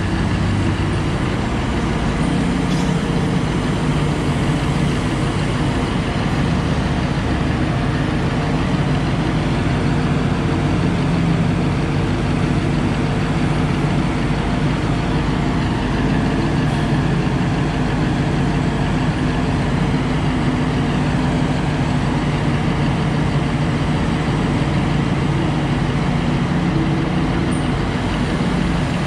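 Heavy engines of a Liebherr mining excavator and a large mining haul truck running steadily as the excavator works, a constant low drone with no clear bucket impacts.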